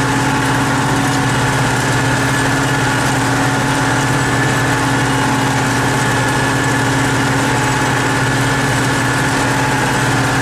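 T-150K tractor's diesel engine running steadily under way, heard from inside the cab as an even, unchanging drone.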